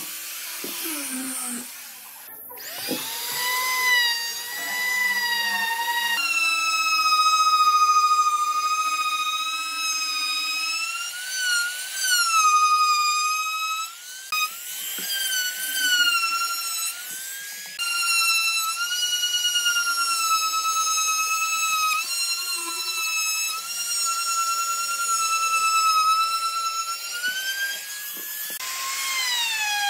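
Handheld electric power tool working pine boards: a loud, high motor whine whose pitch sags and recovers with the load, in several stretches separated by brief breaks.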